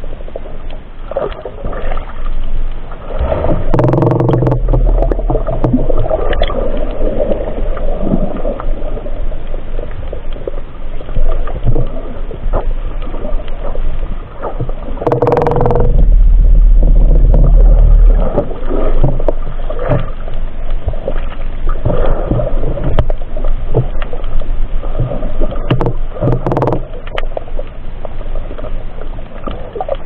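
Muffled underwater noise as a diver swims with a speargun: water rushing and gurgling against the camera, with heavy low rumbling surges about four seconds in and again around the middle, each led by a brief humming tone.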